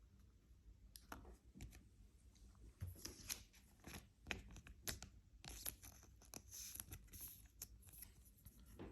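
Trading cards being handled: faint sliding and rustling of card stock with many small clicks and scrapes, a longer run of sliding about halfway through.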